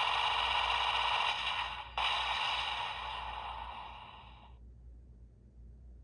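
Magnum Shooter 40X toy gun's electronic Tactical Blast firing effect through its built-in speaker: a steady rushing blast, then a second sharp blast about two seconds in that fades out.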